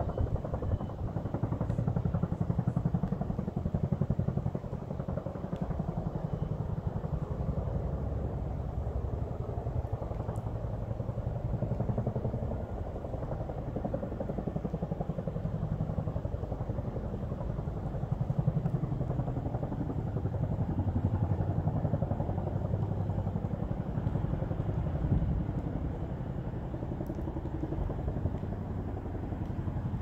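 Chinook tandem-rotor helicopter's rotors beating in a fast, steady throb, swelling and fading a little in loudness as it works over the flood banks.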